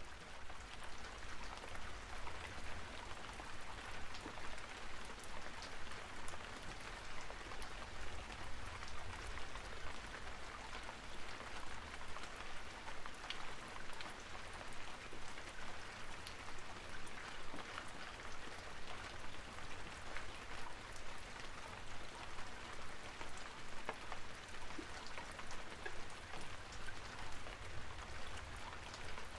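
A mailer envelope and bubble wrap being handled and opened by hand, a continuous crinkling and crackling of many small ticks over a low rumble.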